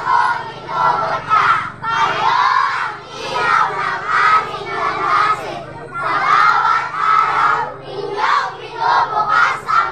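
A large group of children chanting and singing together in loud shouted phrases, swelling and dropping about once a second.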